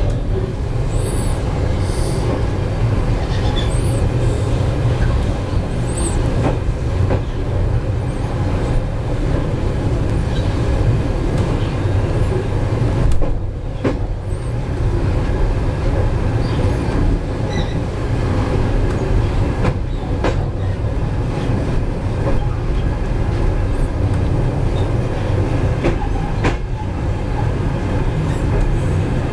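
Passenger train carriage rolling slowly as the train pulls away, heard from inside the carriage: a steady low rumble from wheels and running gear. Brief high wheel squeals come several times in the first half, and a few clicks follow later.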